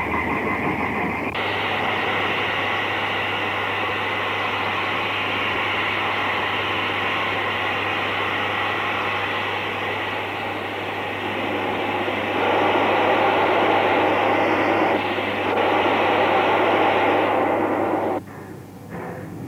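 Steam hissing steadily from a New South Wales 38 class 4-6-2 Pacific steam locomotive standing on a turntable. The hiss grows louder for a few seconds near the end and then stops abruptly, over a steady low hum.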